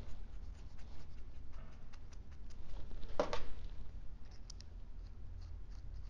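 Fingers turning a small screw in a hand-made knob: faint scraping and small clicks, with one louder rustle a little past halfway, over a steady low hum.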